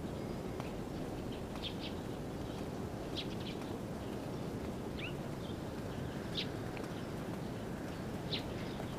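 Outdoor ambience: a steady low background hum with short, high bird chirps about five times, spaced a second or two apart.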